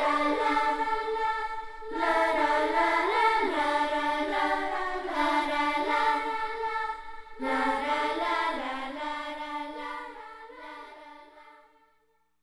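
Choral music: voices hold long notes and glide slowly between pitches in phrases, a new phrase beginning about two seconds in and again past halfway, then fade out to silence near the end.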